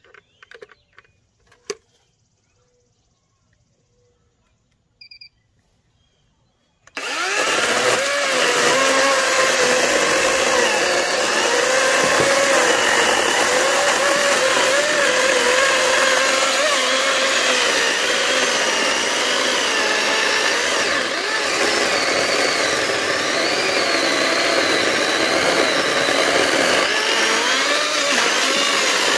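Greenworks 80V battery chainsaw cutting oak sawmill slabs. It starts abruptly about seven seconds in, and its motor and chain whine wavers in pitch as the cut loads it. Before that there is near silence with a few faint clicks.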